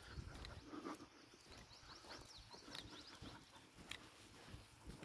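Near silence outdoors: a few faint, high songbird chirps, with faint footsteps on a tarmac path.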